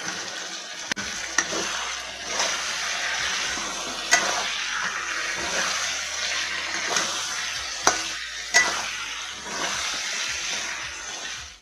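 Chicken pieces sizzling as they fry in oil and spice paste in a pan, stirred continuously, so the sizzle swells and fades every second or two. A spatula knocks sharply against the pan a few times.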